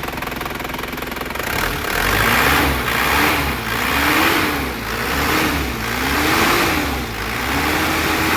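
Isuzu Crosswind engine idling steadily, then from about a second and a half in revved up and let fall back about six times, the last rev held a little longer. It is a test run after the loose crankshaft pulley, which drives the alternator, air-conditioning compressor and power-steering pump, has been re-fitted.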